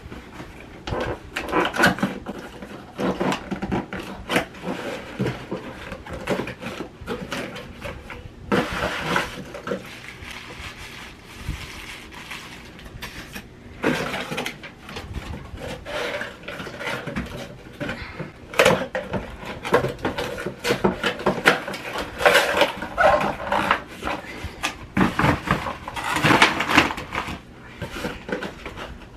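Cardboard boxes and packaging being handled: irregular rustling and scraping with light knocks as boxed items are lifted, shifted and their flaps opened.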